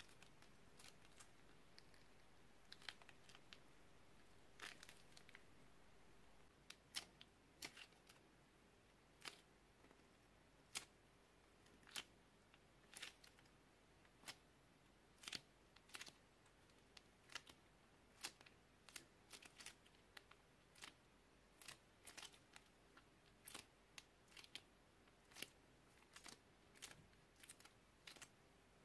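Faint, irregular small clicks and crinkles, about one or two a second, from a small plastic piping bag squeezed by hand as soft clay is piped out of it.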